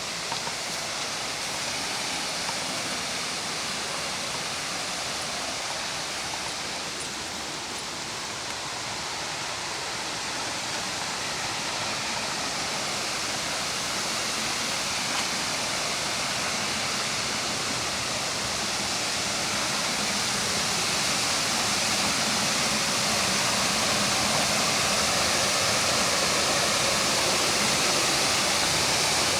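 Rushing water of a waterfall: a steady noise with no rhythm or pitch that grows gradually louder.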